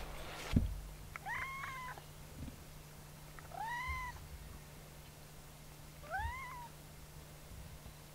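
Domestic cat meowing three times, a few seconds apart, each call rising and then falling in pitch. A low thump comes just before the first meow.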